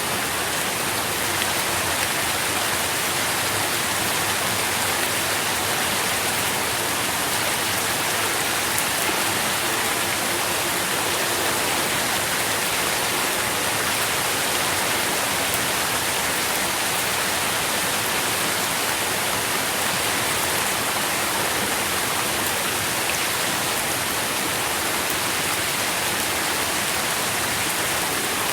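Steady rain falling and pattering, an even hiss with scattered drop ticks.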